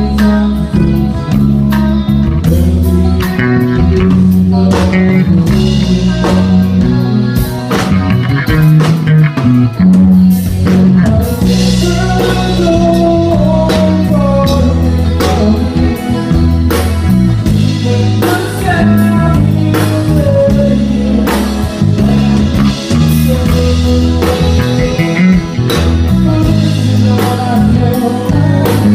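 Live rock song with a drum kit being played hard, along with guitar and a sung vocal line, heavy in the low end.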